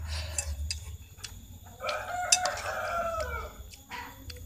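A rooster crowing once, a call of nearly two seconds that drops in pitch at its end.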